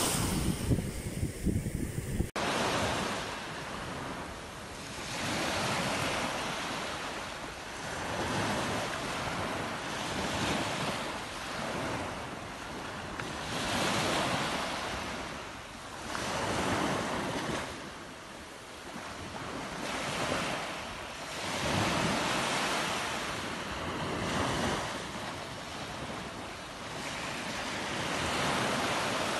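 Small sea waves breaking and washing up a sandy shore, the surf swelling and fading about every four seconds. For the first two seconds the foaming surf is louder and rougher.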